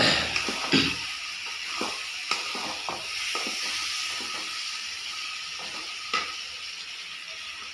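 Chicken and vegetables in masala sizzling in a black kadhai over a gas flame, with a steady frying hiss. A wooden spatula scrapes and knocks against the pan now and then as the food is stirred, most strongly near the start and once about six seconds in.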